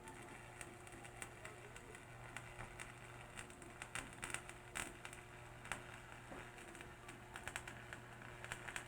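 Welding arc from a Powerhouse Evo transformer welder, crackling and popping irregularly over a steady low hum. The arc and the hum stop together at the end.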